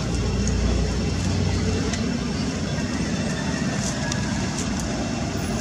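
Steady low rumble with hiss, with no distinct events standing out.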